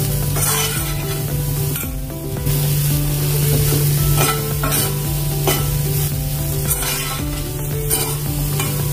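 Chopped bitter gourd sizzling with oil and spices in a pan while a spoon stirs it, with repeated scrapes of the spoon against the pan.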